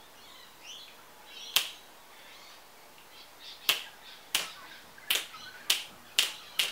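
Seven finger snaps. A single snap comes about a second and a half in, then six more from about the middle on, speeding up to roughly one every half second.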